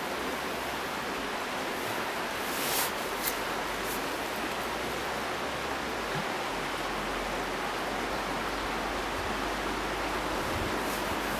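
Steady rushing noise outdoors, with two brief rustles about three seconds in.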